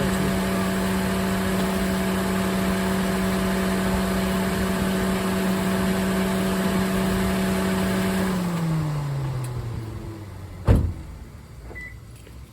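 2017 Toyota Corolla's engine running steadily at idle, then switched off: its hum drops in pitch and dies away over about two seconds. A single loud thud follows, like a car door shutting.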